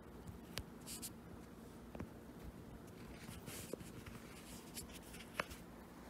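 Faint scratchy rustling with a few soft clicks, as a kitten moves about on a fabric cushion.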